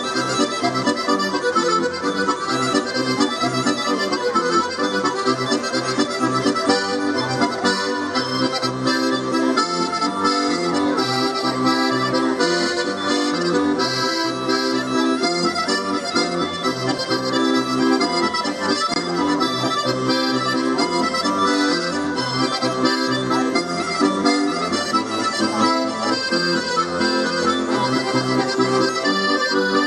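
Accordion playing a continuous tune, with chords and a rhythmic bass line under the melody.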